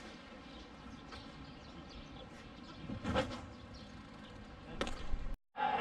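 Faint, steady outdoor ambience with insects buzzing and a couple of soft knocks. The sound cuts out abruptly just before the end.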